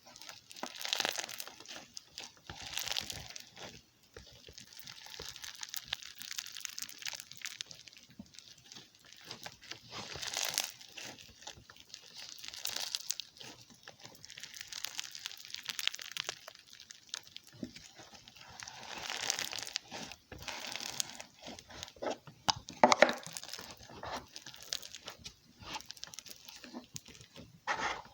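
Crunchy slime squeezed and worked by hand: bursts of crackling and popping every second or two, with a few sharper pops about four fifths of the way through.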